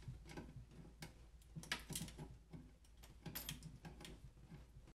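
Faint, irregular metallic clicks and ticks of a wrench working the brass compression nut on a braided faucet supply line as it is tightened, over a low steady hum. The sound cuts off abruptly near the end.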